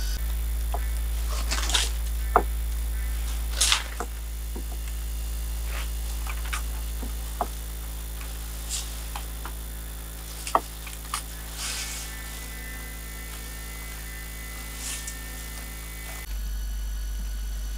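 Dry palm-leaf thatch rustling in short swishes, with scattered light knocks and clicks of bamboo as a man moves on the thatched roof and climbs a bamboo ladder. A steady low hum underlies it all, and the background changes abruptly near the end.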